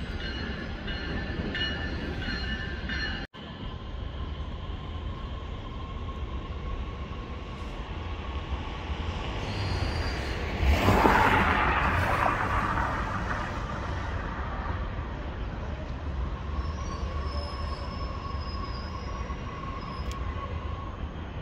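Metra Electric bilevel electric commuter train running on the tracks, with steady rumble and thin high wheel squeals. The sound swells to its loudest about halfway through. It drops out for an instant about three seconds in.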